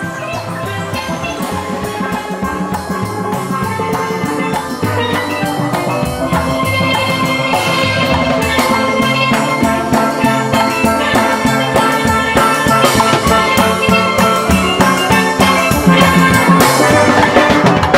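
Steel band playing a 1950s swing jazz tune: steel pans carry the melody over a drum kit, the music growing steadily louder.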